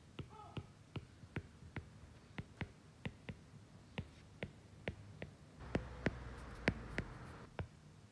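Stylus tapping and clicking on a tablet's glass screen while handwriting: short sharp ticks, two or three a second, with a brief low rumble of handling about three-quarters of the way through.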